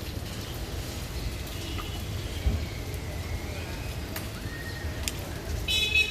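Rain falling, with scattered drips ticking over a low rumble and a single thump about two and a half seconds in. Faint bird calls sound in the background, and a short, loud bird call comes near the end.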